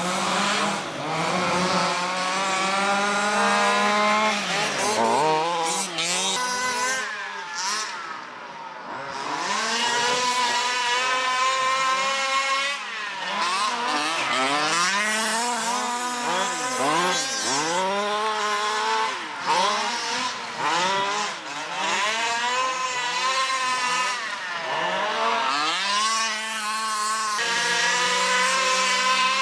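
Several large-scale RC cars' small two-stroke petrol engines buzzing and revving, their pitches rising and falling against each other as the cars race around the track.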